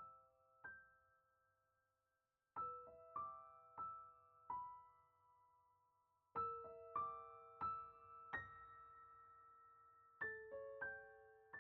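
Soft background piano music: small groups of single struck notes that ring on and fade, broken by two short silences between phrases.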